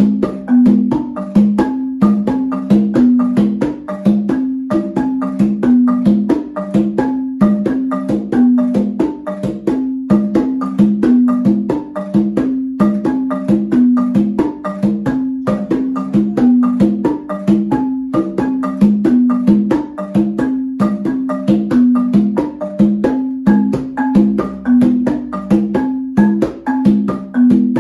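Solo multipercussion: a marimba de chonta with bamboo resonator tubes, played with one mallet, and a cununo hand drum struck with the other hand. Together they play a steady, fast, repeating pattern of strikes, with a low marimba figure of alternating notes.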